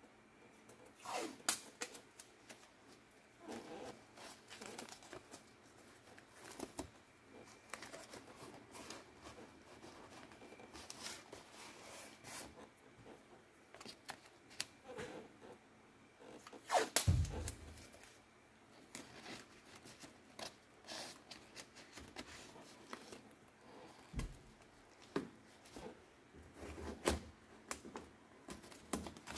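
A cardboard-and-masking-tape mock-up being handled and pressed into place by hand: scattered faint rustling, crinkling and light knocks, with one louder thump a little past halfway.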